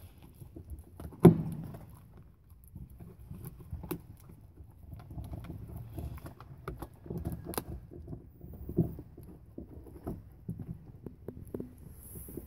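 A Carolina Dog chewing and tearing at a raw venison shoulder blade: irregular gnawing with many small clicks and crackles of teeth on meat, sinew and bone, and one sharp knock about a second in.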